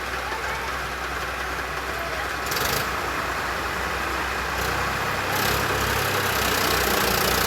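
Heavy vehicle's diesel engine running, growing louder about two and a half seconds in and again about five seconds in.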